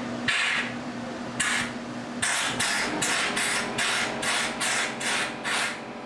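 Compressed air from a blow nozzle hissing in bursts as dust is blown out of a 3/4-inch hole drilled in concrete for an epoxy anchor. There are a few longer blasts first, then quick short blasts about three a second from about two seconds in.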